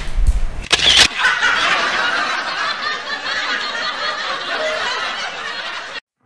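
A sharp click or two, then a canned laugh track of audience laughter lasting about five seconds and cutting off abruptly near the end.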